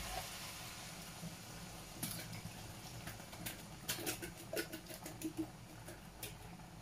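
Canned pineapple chunks tipped from a tin into a frying pan of chicken: a quick clink as the tin meets the pan, then a run of irregular light taps and clicks as the pieces drop and a utensil knocks the last ones out, over a faint steady hum.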